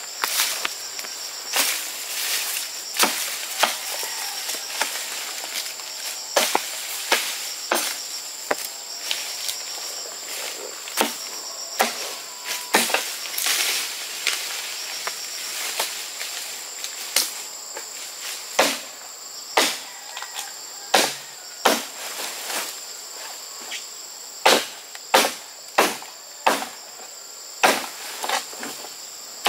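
A machete chopping bamboo in irregular single strokes, coming faster in the last few seconds, over a steady high-pitched drone of insects.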